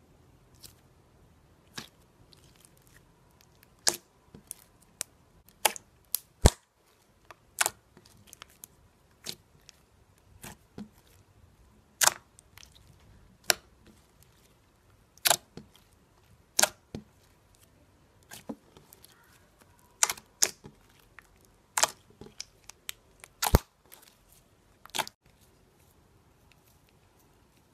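Clear glitter slime being pressed and folded by hand, making sharp pops and clicks at irregular intervals, roughly one a second, that stop near the end.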